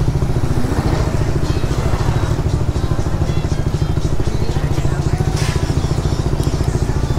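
Suzuki Raider Fi 150's single-cylinder four-stroke engine running steadily at low revs while the motorcycle rolls slowly, its exhaust pulses coming in a fast, even rhythm.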